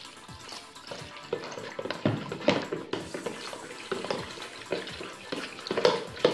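A fork stirring and splashing warm water in a plastic bowl to dissolve fresh yeast, with irregular clinks and scrapes of the fork against the bowl.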